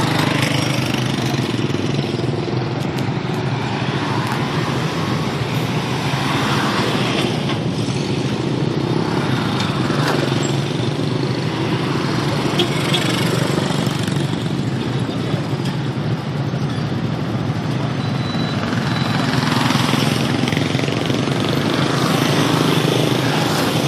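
Road traffic, mostly small motorcycles and cars, passing slowly and close by: a steady run of engine and tyre noise that swells several times as individual vehicles go past.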